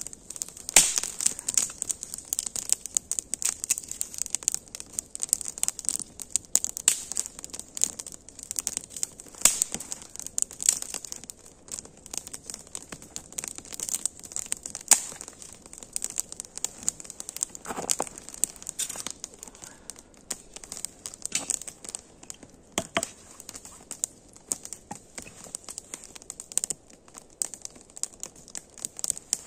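Small wood campfire crackling, with dense irregular pops and a few louder sharp snaps scattered through.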